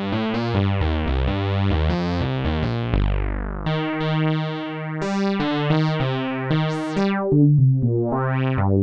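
Crumar Stratus analog synthesizer playing a run of notes and chords on its sawtooth waveform, a bright, buzzy tone. Near the end the notes brighten and dull again as the filter is swept.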